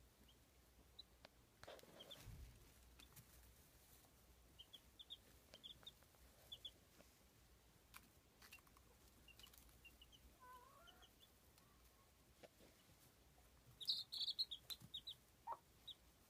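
Baby chicks peeping in short, faint, high notes, with a quick run of louder peeps near the end. A little past the middle the mother hen gives one lower, wavering call, and about two seconds in there is a brief rustle.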